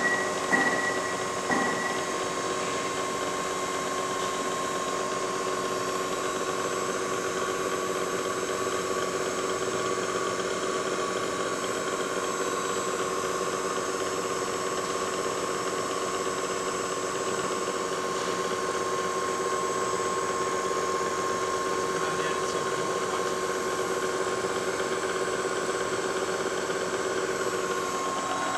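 Lagun vertical milling machine running steadily, its 1/4-inch end mill cutting a slot through a block of white plastic: an even mechanical hum and whine of several steady tones. A few short knocks sound in the first two seconds.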